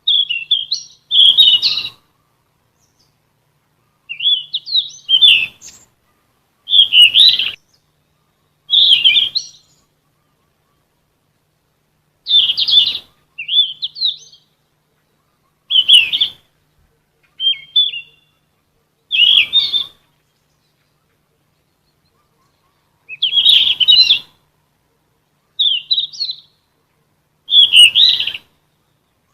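Sikatan emas, a Ficedula flycatcher, singing short, high, twittering phrases about a second long, each followed by a pause of a second or more, about a dozen phrases in all.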